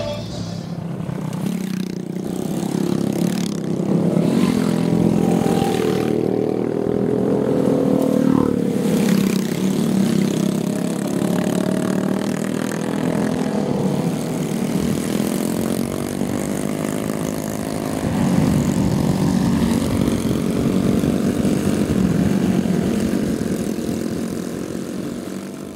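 Several Kikker 5150 Hardknock bobber motorcycles running together on a group ride, their engine notes rising and falling as the riders roll on and off the throttle.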